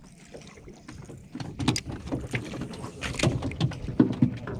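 Irregular series of short splashy knocks and clicks on and around a small fishing boat on calm water, roughly three a second, starting about a second in and loudest near the end.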